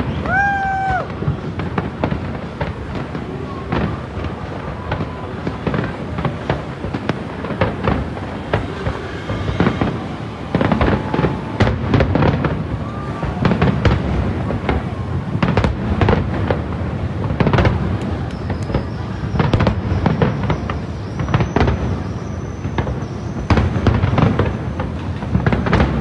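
Aerial firework shells bursting in a continuous run of bangs and crackles, with a brief high tone about half a second in.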